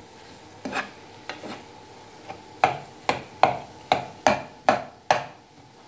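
Metal spoon knocking and scraping against a non-stick frying pan while mixing and mashing a thick potato filling: a string of clinks, a few scattered at first, then a steady run of about three a second in the second half.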